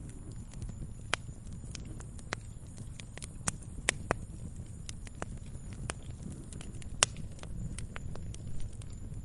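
Fire crackling: irregular sharp pops and snaps over a steady low rumble, the loudest pops about four and seven seconds in.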